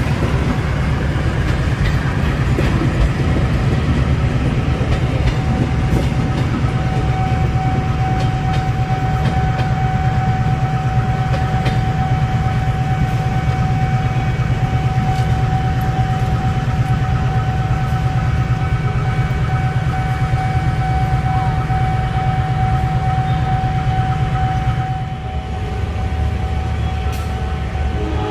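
A train's diesel engine running steadily close by, a loud low rumble. A steady high whine joins about six seconds in; near the end the whine stops and the engine note drops lower and quieter.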